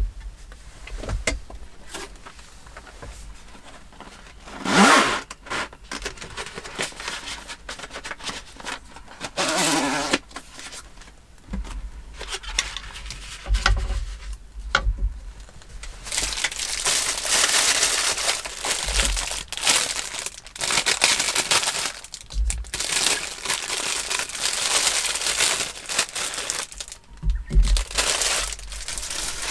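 Food packaging being handled: a paper carton opened with short tearing rustles, then long stretches of plastic wrapping crinkling as it is worked off a Japanese leek, with a few sharp knocks on the wooden table.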